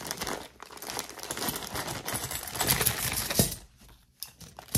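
Small metal jewelry pieces clinking and jingling together as a bag of them is opened and emptied, with the bag rustling. The clatter is busy for about three and a half seconds, then dies down, with one last click near the end.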